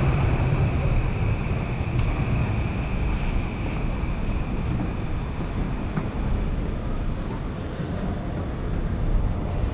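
Steady city-street background noise, a low rumble like traffic, with a thin high steady tone that fades away about four seconds in.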